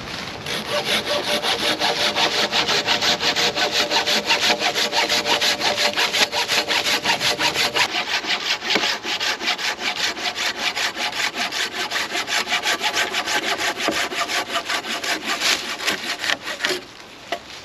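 Hand saw cutting through wood with quick, even back-and-forth strokes that stop near the end.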